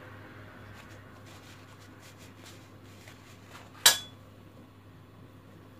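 Faint handling ticks, then a single sharp clink of a metal kitchen knife striking a granite countertop about two-thirds of the way through.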